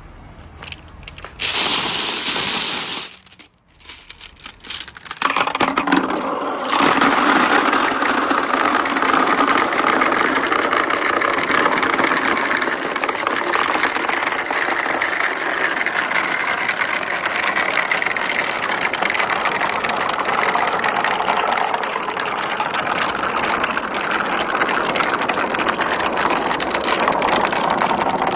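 Many glass marbles rolling and clattering down a marble run. A brief loud rush comes about two seconds in, then a dense, continuous rattle of rolling marbles starts about five seconds in and keeps going.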